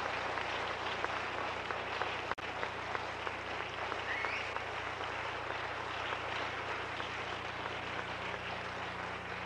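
Audience applauding steadily, a dense crackle of many hands clapping, with a brief dropout about two seconds in.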